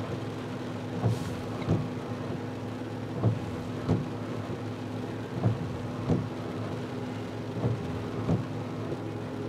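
Windshield wipers sweeping a rain-wet windshield, heard from inside the car: pairs of soft thumps about every two seconds over the steady hum of the car's idling engine.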